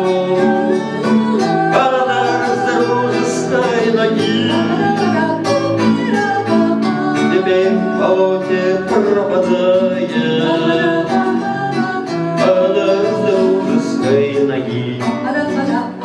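A Russian bard song sung to acoustic guitar accompaniment: a voice singing the melody over plucked and strummed guitar chords.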